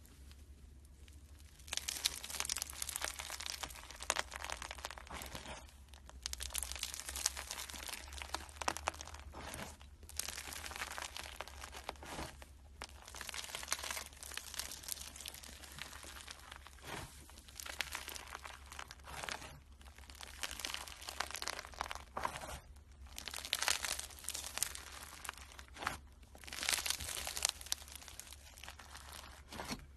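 Slime squeezed and stretched by hand, crackling and crinkling in repeated bursts with short pauses between them, starting about two seconds in.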